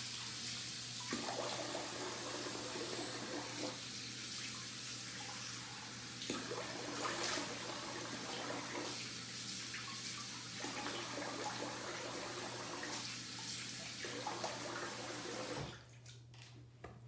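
Bathroom sink tap running steadily while handfuls of water are splashed onto the face several times, rinsing off after a shave. The tap is shut off about fifteen and a half seconds in and the running water stops suddenly.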